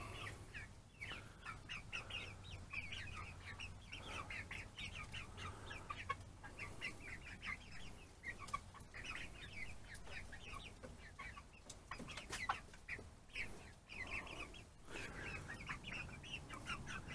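Young chickens peeping and clucking softly, a steady stream of many short high calls, with a few faint knocks in between.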